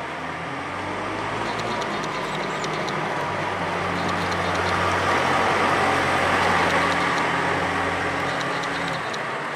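Manitou M30-4T rough-terrain forklift's diesel engine running as the machine drives past, growing louder to a peak about six seconds in and then fading as it moves away.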